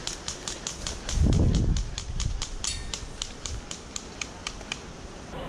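An insect calling from the grass as a rapid, regular high ticking, about five ticks a second, that stops near the end. About a second in, a brief low rumble on the microphone is the loudest sound.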